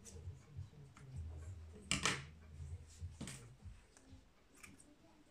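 Scissors snipping synthetic braiding hair on a wig: a few sharp snips, the loudest about two seconds in and another a second later, over low handling rumble.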